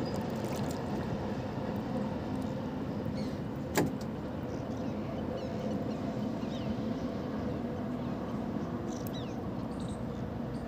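A steady low motor hum over outdoor background noise, with one sharp knock about four seconds in.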